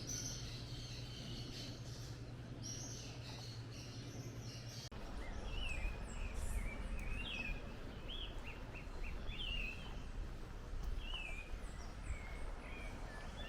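Dawn chorus of tropical forest birds chirping and calling. For the first five seconds high chirps sit over a steady low hum; after that comes a string of short, repeated sliding whistled calls.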